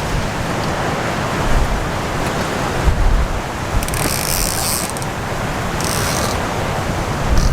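Strong wind gusting over the microphone, with surf behind it, and two brief rasping sounds about four and six seconds in.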